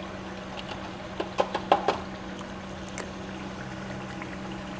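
A spoon knocking against a metal karahi and another spoon, a quick cluster of five or six clacks a little past a second in and one more a second later, over the steady bubbling of thick mutton gravy simmering on the stove, with a constant low hum underneath.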